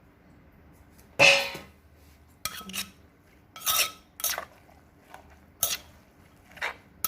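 Spoon and pestle knocking against the mortar as the pounded noodle salad is stirred and tossed: about seven sharp clacks at uneven intervals, the loudest about a second in.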